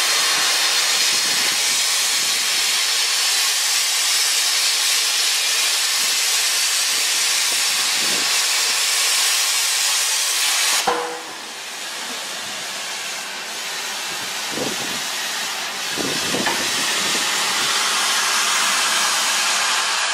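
CNC plasma cutter's 120 A arc hissing steadily as it cuts 14 mm steel plate; about halfway through the arc cuts off with a click, and a quieter air hiss carries on with a couple of soft thumps.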